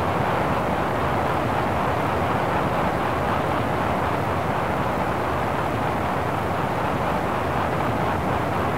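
Steady rushing noise of travel at speed, wind and road rumble with no distinct events.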